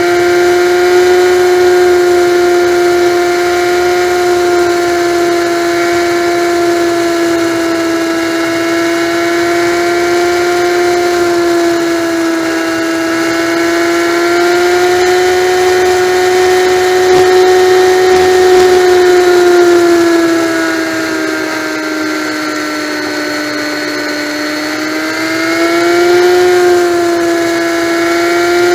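Honda Magna motorcycle's V4 engine whining steadily at freeway cruising speed. Its pitch sags and the sound quietens for a few seconds late on as the bike eases off, then climbs back as it speeds up again.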